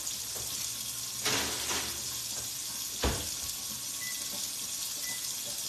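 Kitchen oven being loaded: clatter as the cookie tray goes in, then a single sharp thud about three seconds in as the oven door shuts. Faint short high beeps follow near the end as the timer is set, over a steady background hiss.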